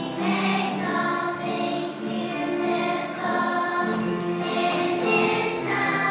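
A group of children singing together as a choir, with musical accompaniment.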